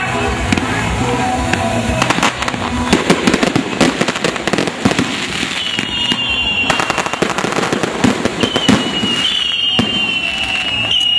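Barco de fogo, a fireworks-laden boat running along a wire, spraying sparks with dense crackling and popping. A high steady whistle, falling slowly in pitch, comes in about six seconds in, breaks off for a moment, then returns and holds.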